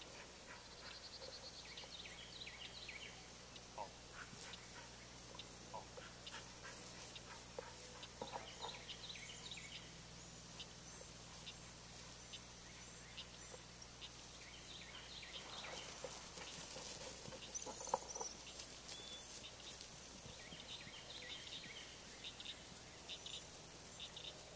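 Faint open-air ambience with scattered short, high bird chirps and calls, and a few light clicks.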